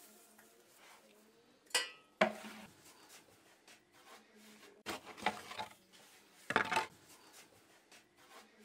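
Sharp clattering knocks and scrapes, in several bursts, of a wooden bread peel and oven tools against the hearth of a wood-fired brick oven as loaves are loaded in.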